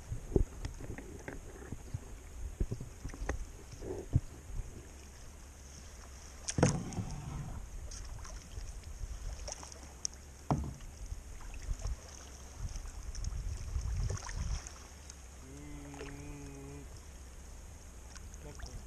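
Kayak being paddled on calm water: paddle splashes and drips with irregular knocks and clicks against the plastic hull, the loudest splash about two-thirds of the way in.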